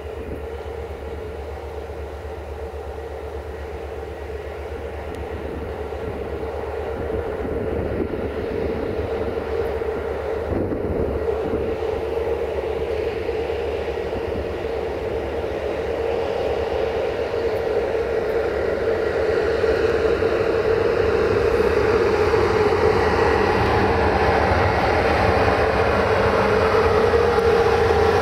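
A Romanian 060-EA class electric locomotive hauling passenger coaches approaches slowly. Its steady hum grows gradually louder as it draws near and begins to pass.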